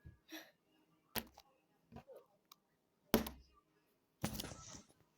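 Slime being squished and popped by hand: a sharp pop about a second in, a louder pop about three seconds in, small clicks between them, then a longer squelch near the end.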